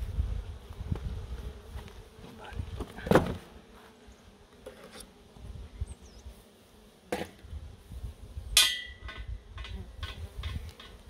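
Honeybees buzzing steadily around open hives, with a few sharp knocks and clatters of hive equipment being handled, the loudest about three seconds in and near the end.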